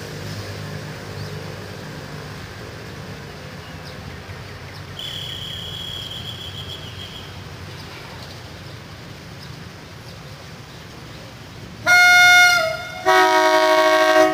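Diesel train's air horn sounding two loud blasts about a second apart near the end, the first shorter and dropping slightly in pitch as it ends, the second a fuller chord. Before that, a low steady rumble and a faint high steady whistle lasting about two seconds.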